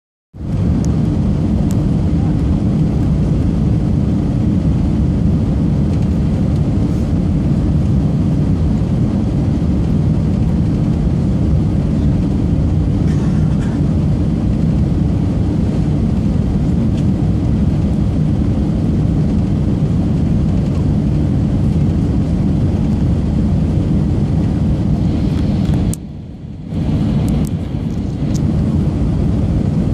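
Airliner cabin noise on approach: a loud, steady rumble of engines and rushing air heard from inside the cabin. Near the end it dips briefly for about a second.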